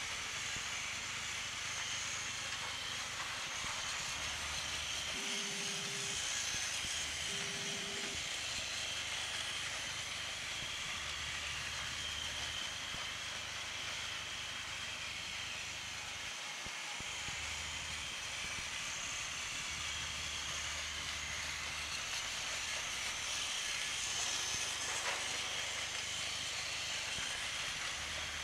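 Battery-powered toy train's small motor and gears whirring steadily as it runs along plastic track, a constant high hiss.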